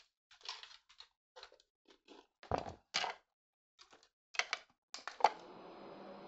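A run of knocks and clicks, then a sharp click about five seconds in, after which an electric fan starts running with a steady hum.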